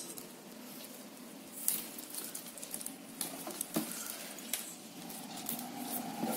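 Plastic basket-weaving wire being handled and knotted: irregular rustling with scattered small clicks and scrapes as the stiff strands rub and snap against each other.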